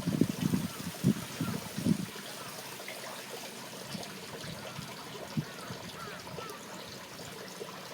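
Steady rush of running water in a swollen, muddy canal. A few short low sounds come in the first two seconds, and faint high chirps come now and then.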